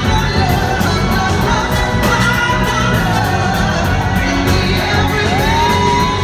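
Live band performance with a woman singing lead into a microphone over the full band.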